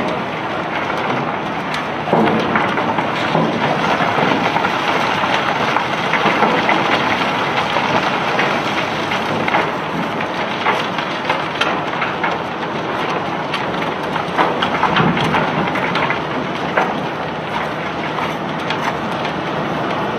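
Cobblestones being unloaded from a barge, clattering as they go, with a steady machinery rumble underneath. Many small knocks sound over a dense, continuous noise.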